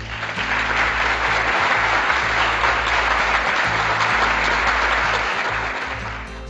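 Applause, loud and steady, over background music. It swells in over the first second and fades out near the end.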